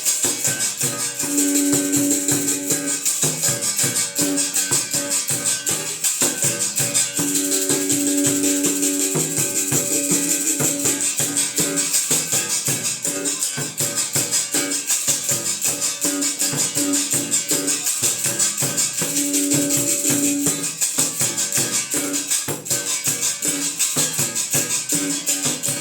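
Berimbau being played: the steel string struck with a stick in a fast, steady rhythm, its low notes ringing out at times, with the caxixi basket rattle shaking along on every stroke.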